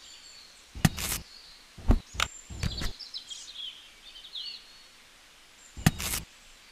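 Several sharp clicks and knocks of small plastic parts being handled as a little wire connector is pushed into a miniature switch box. Faint bird chirps sound in the background.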